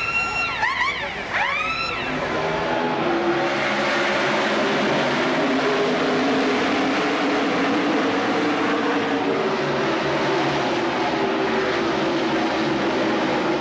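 NASCAR stock cars' V8 engines at racing speed on the track. In the first two seconds several engine notes sweep up and down as cars go by, then the engines of the field blend into a steady drone.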